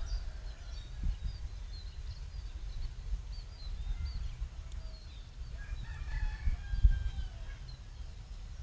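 Chickens and small birds calling: quick chirps throughout, with longer drawn-out calls about six seconds in, over a low uneven rumble.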